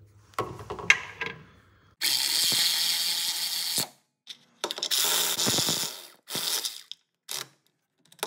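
A ratchet wrench clicking rapidly as it runs in a transmission bellhousing bolt: two long runs of about two seconds and a second and a half, then a few short ones.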